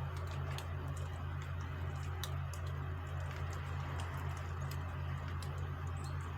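A steady low machine hum with faint, irregular ticks and clicks over it.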